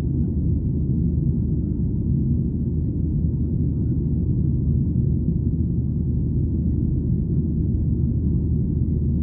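Steady low rumble inside the cabin of a Boeing 737-800 with CFM56-7B engines, heard from a window seat: engine and airflow noise, even and unchanging.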